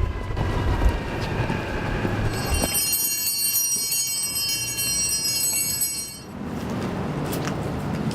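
Low outdoor rumble. About two and a half seconds in, a high metallic ringing squeal starts abruptly and holds steady for roughly three and a half seconds before cutting off, after which the low rumble returns.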